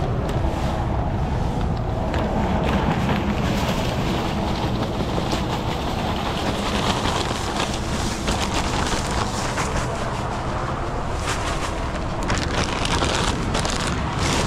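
Heavy truck engine running steadily at idle, with wind noise on the microphone and a few sharp clicks near the end.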